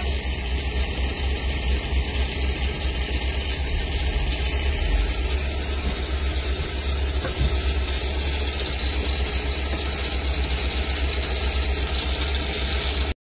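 Low engine rumble of slow-moving and idling vehicles in a jam of semi trucks, heard from inside a vehicle's cabin. It cuts off abruptly near the end.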